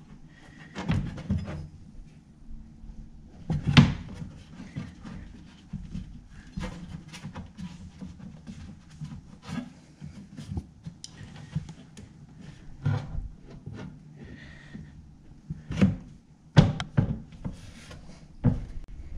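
Hand pressing and rubbing a rubber mat flat in the base of a Picobrew Z1 brewing appliance, with scattered knocks and thumps against the case; the loudest knocks come about four seconds in and near the end.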